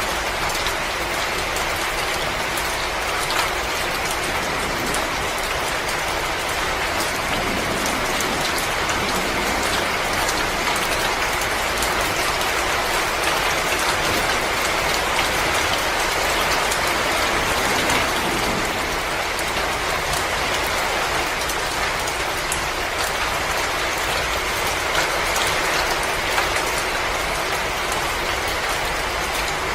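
Wood fire crackling in a fireplace: a steady hiss dotted with many small pops and snaps.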